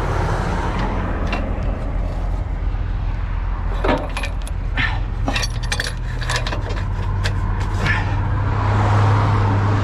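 Heavy truck's diesel engine running steadily, its drone shifting slightly in pitch partway through, with light metallic clinking and rattling between about four and eight seconds in.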